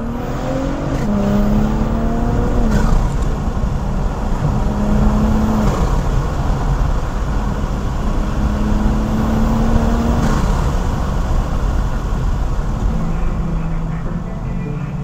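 BMW M340i's B58 turbocharged inline-six, fitted with an aftermarket cold air intake, accelerating hard, heard from inside the cabin. The engine note climbs through each gear and drops sharply at upshifts about three, six and ten seconds in.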